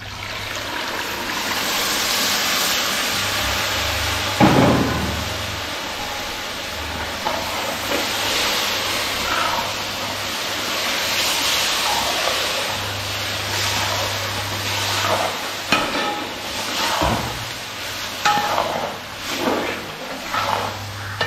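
Tamarind water going into a large pot of hot fried spice masala, with a steady loud sizzle. A ladle stirring knocks against the pot a few times, with more clatter near the end.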